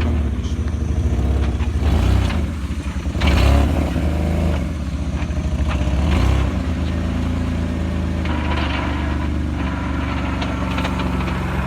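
BMW E36 engine running, its revs dipping and picking up again about two to three seconds in and once more around six seconds in, then holding steady.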